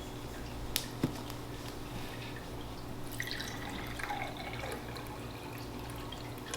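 Faint water dripping and trickling, with two short light clicks about a second in.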